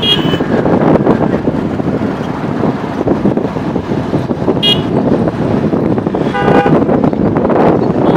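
Wind on the microphone and road traffic noise from a moving bike, cut by short vehicle-horn toots: a high one right at the start, another about four and a half seconds in, and a lower-pitched horn about six and a half seconds in.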